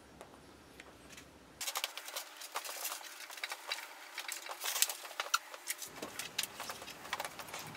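Quiet room tone with faint ticks, then, about one and a half seconds in, a dense run of small clicks, taps and rustles from pens and paper handled at classroom tables, lasting about four seconds before thinning out to scattered ticks.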